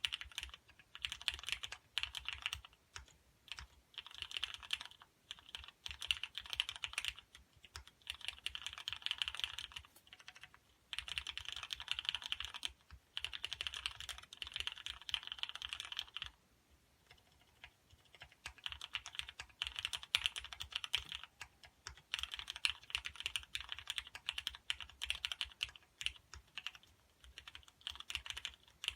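Typing on a custom 84-key mechanical keyboard with Cherry MX Black linear switches (50 g) on a Teflon plate: rapid runs of key clacks in bursts of a few seconds, with a longer pause past the middle.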